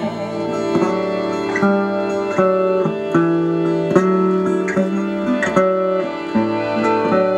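Instrumental music led by a plucked string instrument, with a steady rhythm of notes and no singing.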